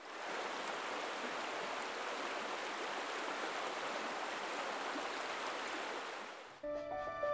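Steady rush of flowing water, like a running stream, fading in at the start and stopping about six and a half seconds in. Music with held notes begins as it stops.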